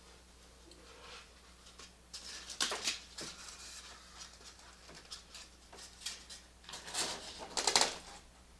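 Rigid foam insulation panel pieces rubbing and squeaking against each other and the wall as a hot-knife-cut piece is worked free and handled. The scratchy bursts are irregular, begin about two seconds in and are heaviest near the end.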